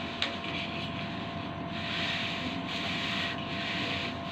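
Styrofoam rubbing with a steady hiss as it is pushed along a hot-wire cutter, with a faint steady whine underneath and a single click shortly after the start.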